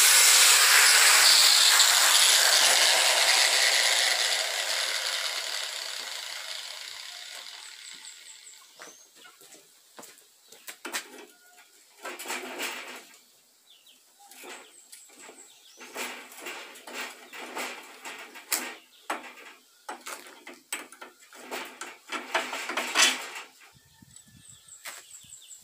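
Angle grinder running, then winding down and fading away over several seconds. After it, scattered metallic clinks and short scrapes of steel parts being worked with pliers.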